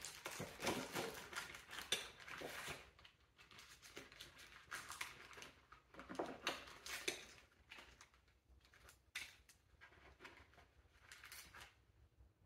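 Faint, irregular clinking and rustling of small metal tools, such as Allen wrenches, and plastic parts bags being handled in a toolkit case. The sounds are busier in the first half and thin out toward the end.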